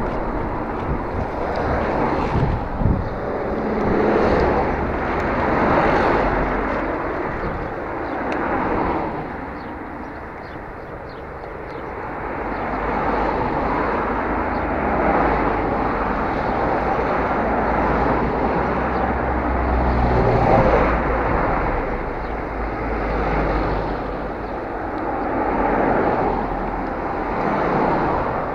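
Wind rushing over the microphone of a camera on a moving bicycle, swelling and easing every few seconds.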